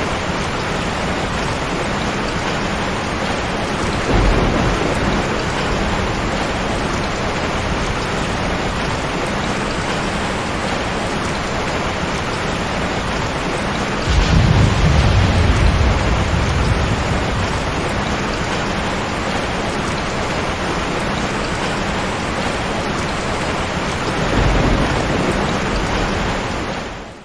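Heavy rain falling steadily, with low thunder rumbling three times: about four seconds in, a longer, louder roll around the middle, and again near the end. The rain fades out at the very end.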